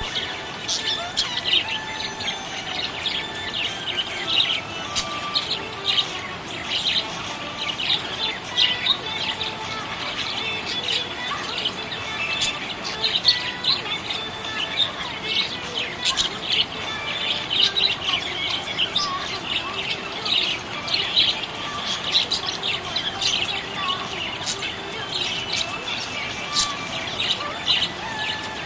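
Budgerigar chirping and warbling without a break: a fast, busy stream of short high chirps.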